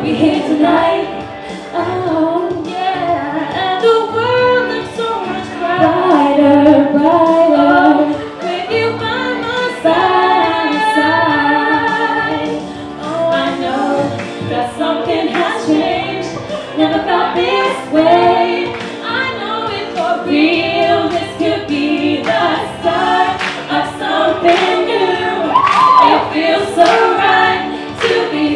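Two female voices singing a pop duet into microphones through a PA, over a backing track with a steady beat.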